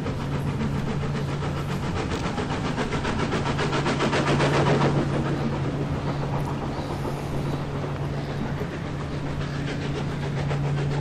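OO-scale model train running past on the layout, its wheels clicking over the rail joints in a quick, even rhythm that swells and fades, loudest about four to five seconds in, over a steady low hum.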